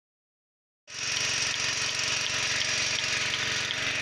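Single-bucket milking machine running steadily with its vacuum pump, cutting in abruptly about a second in.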